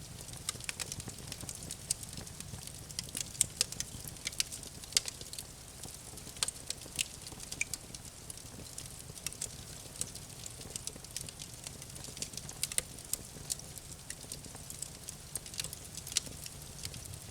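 Campfire crackling: irregular sharp pops and snaps of burning wood over a low, steady rumble of the flames.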